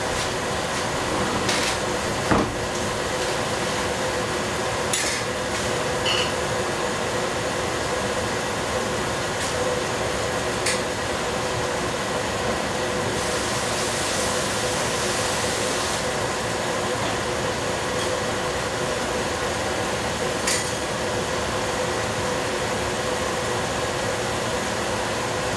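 Steady mechanical hum in a kitchen, with scattered sharp clinks of dishes and utensils and a brief hiss about 13 seconds in.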